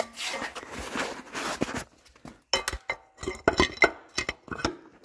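Rough scraping and rustling for about two seconds, then a run of sharp metallic clinks and clanks with a short ring, as the engine and transaxle assembly are shifted and worked free on an engine hoist.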